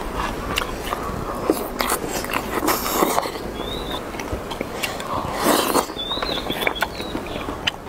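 Eating at the table: chewing and slurping soup from a porcelain bowl, with many small clicks of chopsticks against the bowl.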